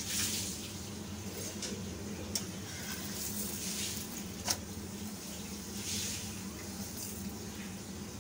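Oil sizzling under a puri frying on a tawa griddle, a crackly hiss that swells and fades over a steady low hum. A metal utensil clicks against the pan twice, a little before and a little after the middle.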